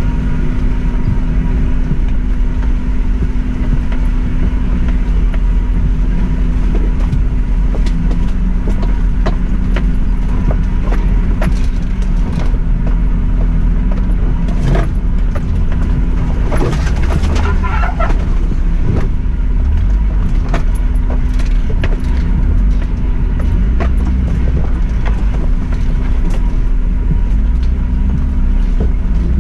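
Suzuki Jimny engine running steadily at low revs as the 4x4 crawls along a rough green lane, with frequent knocks and rattles over the bumps and a brief scraping rush about halfway through.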